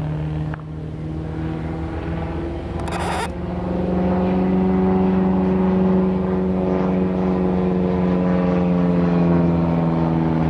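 A Piper J-3 Cub's engine and propeller running steadily overhead through a loop, the pitch bending gently as it climbs and turns and the sound swelling louder about three and a half seconds in. A brief rush of hiss comes about three seconds in.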